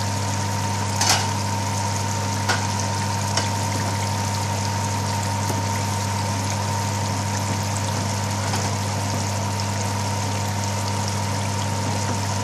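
Pan of lamb curry simmering on a gas hob, bubbling steadily over a constant low hum. A couple of light clicks come in the first few seconds.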